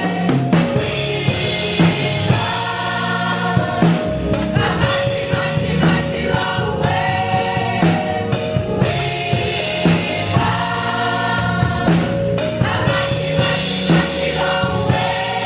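A choir singing a gospel song with a band, backed by a regular drum beat.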